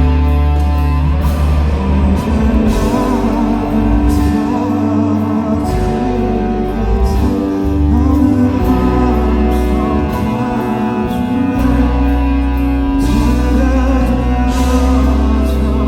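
Live band playing a pop-rock ballad with a steady bass line, drums with repeated cymbal crashes, and a wavering sung vocal line over it.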